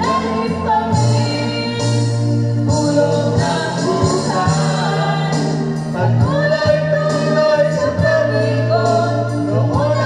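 Karaoke: a woman and a man singing into microphones over a music backing track, played loud through a loudspeaker.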